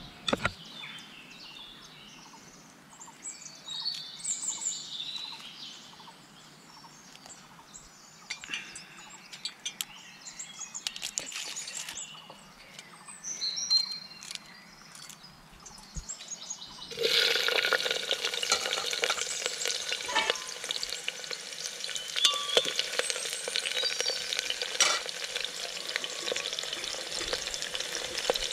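Cooking pot frying over a fire. About two-thirds of the way in, a loud, steady sizzle with dense crackling breaks out as food meets hot oil. Before that there are light clinks of utensils and birds chirping.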